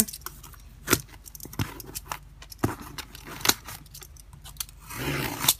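A cardboard parcel being cut open with a thin metal blade: scattered sharp clicks and scratches as the blade works at the twine and packing tape, with a short slitting scrape near the end.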